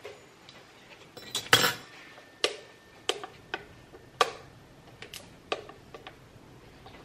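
A utensil clicking and tapping against a plastic sour cream tub as sour cream is scooped out: a string of sharp, unevenly spaced clicks.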